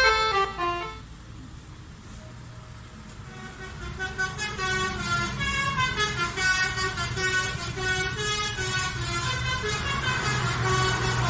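Telolet bus horn playing a quick tune of shifting notes that cuts off about a second in. After a lull, a fainter telolet tune plays on from about four seconds, over the bus engine's low hum, which grows louder near the end.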